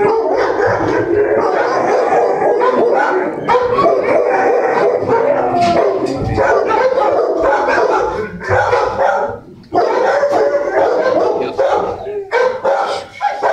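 Many dogs barking and howling at once in a shelter kennel block, a continuous din with a brief dip about nine and a half seconds in.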